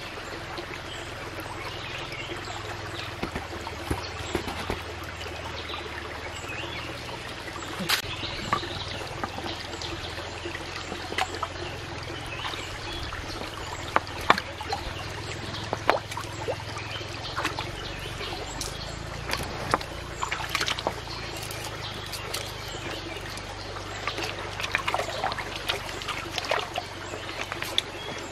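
Shallow stream trickling over rocks, with irregular splashes and sharp clicks from hands working in the water among the stones.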